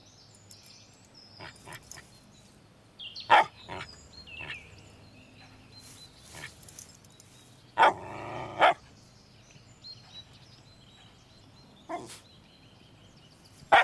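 A dog barking in four separate outbursts a few seconds apart, one of them drawn out to nearly a second about eight seconds in.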